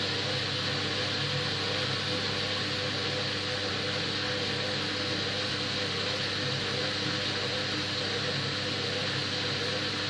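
Hoover front-loading washing machine running a delicate cycle, its drum turning: a steady motor hum with an even hiss over it.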